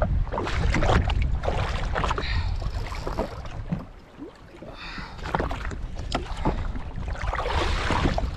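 Wind buffeting the microphone over water slapping and splashing against a jet ski's hull, easing briefly about four seconds in.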